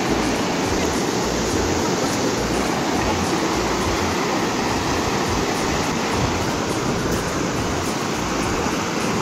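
Fast mountain river rapids rushing over boulders: a loud, steady rush of white water with no let-up.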